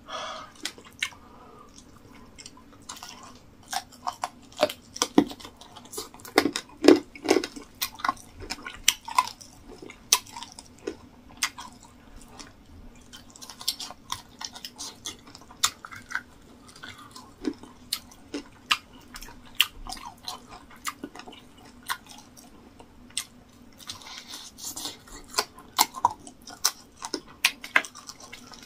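Close-miked chewing of mouthfuls of rice and stew meat: a dense, irregular run of sharp mouth clicks, loudest a few seconds in.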